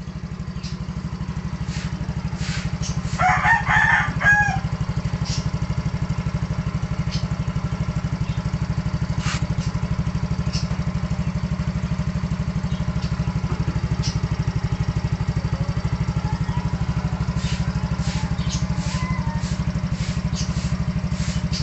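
Yamaha Mio scooter's single-cylinder engine idling with a steady low pulse. A rooster crows once about three seconds in.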